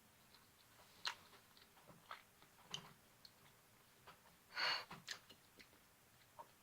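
Faint mouth sounds of someone chewing a bite of glazed chicken thigh: scattered wet clicks and smacks, with a brief louder hiss about four and a half seconds in.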